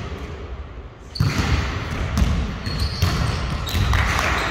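Basketballs bouncing on a court, a run of irregular low thuds that grows louder about a second in.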